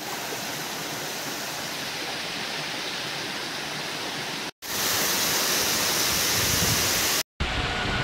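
Steady rushing of water from a rocky hill stream and monsoon waterfall. It breaks off twice at cuts, about four and a half seconds in and near the end, and comes back louder after the first break.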